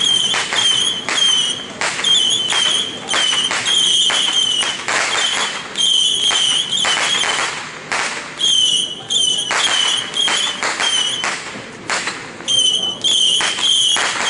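Fireworks going off: a steady run of sharp pops and bangs, several a second.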